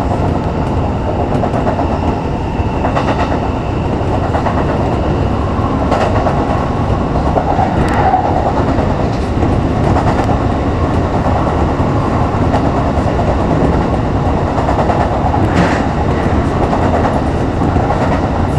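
Kintetsu express train running at speed, heard from inside the front cab: a steady rumble of the wheels on the rails, with a few sharp clicks now and then.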